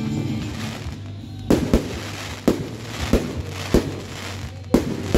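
Aerial fireworks going off: a run of about seven sharp bangs, irregularly spaced, starting about a second and a half in.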